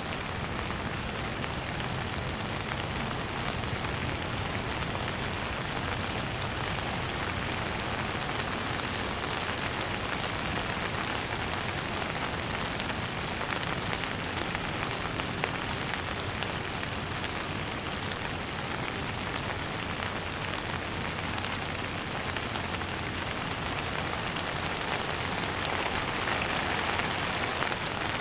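Steady rain falling on a surface: a dense, even hiss with scattered drop ticks, swelling slightly near the end.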